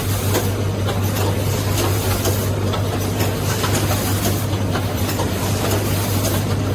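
Rotary premade-pouch packing machine running: a steady low hum with continual irregular mechanical clicking and clatter.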